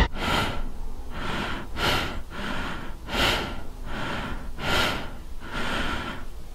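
Heavy, rapid breathing, with about ten breaths in and out coming at an even pace.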